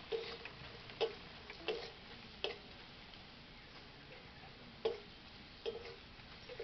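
Metal spatula clicking and scraping against a metal wok while onions and chilies are stirred: about half a dozen sharp clicks, irregularly spaced, some with a brief ring.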